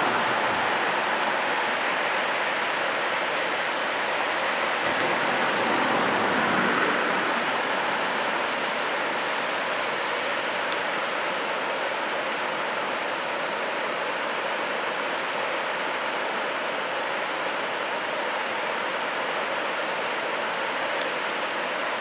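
Steady rush of flowing river water, slightly louder during the first several seconds.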